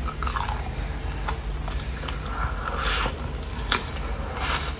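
Close-miked eating of crispy fried chicken: short crunches and wet chewing sounds scattered through, with a longer crackly stretch a little past the middle.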